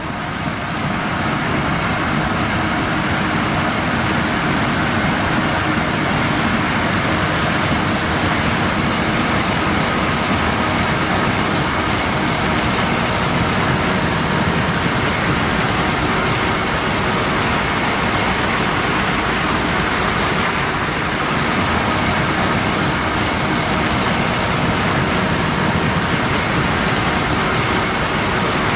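John Deere X9 1100 combine with a 16-row C16F folding corn head harvesting corn: a steady, even machine noise of engine, header and threshing, with faint steady tones running through it.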